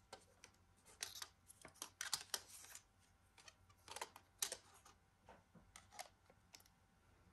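Faint, scattered clicks, taps and short scrapes of a Western Digital Red 3.5-inch hard drive being handled and pressed into a plastic NAS drive tray.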